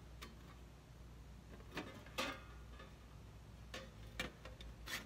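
Hand aviation snips cutting a straight line along the edge of a thin sheet-metal blank: a handful of short, sharp snips at irregular spacing over a faint workshop hum.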